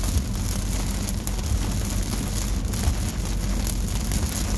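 Heavy monsoon rain falling on a car's roof and windshield, heard from inside the car, with many small drop ticks over a steady low rumble of engine and tyres on the wet road.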